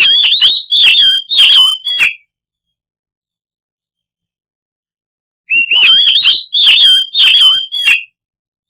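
Oriental magpie-robin (kacer) singing loudly in two phrases of about two seconds each, a few seconds apart: quick whistled notes mixed with sharp, rasping clicks.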